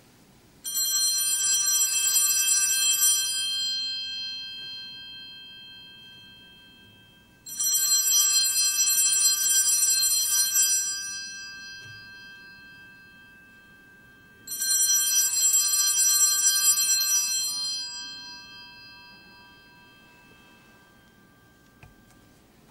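Altar bells (Sanctus bells) shaken three times, each a bout of rapid ringing lasting about three seconds that then dies away slowly. They are rung to mark the elevation of the chalice at the consecration.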